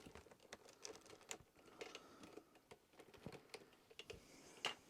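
Faint, irregular clicks and light rattles of a vacuum cleaner's power cord being unwound from its cord hooks and handled, with a sharper click near the end.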